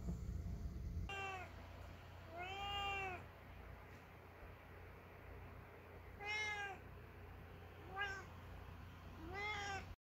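Orange tabby domestic cat meowing five times, each meow rising and then falling in pitch; the fourth is short.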